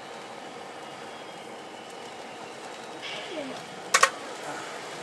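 Steady running noise of model trains on a large layout, with a sharp double click about four seconds in.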